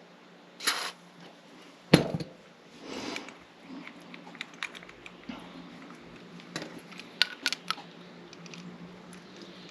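A short spray hiss, then a sharp clack about two seconds in and a run of small scattered metallic clicks and clinks: a pin-tumbler lock cylinder being sprayed with lubricant and handled on the bench.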